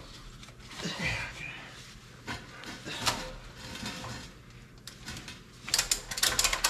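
Scattered knocks and scrapes of metal work, then, about a second before the end, a fast run of ratchet clicks begins: a ratchet strap being cranked while it holds up a truck transmission.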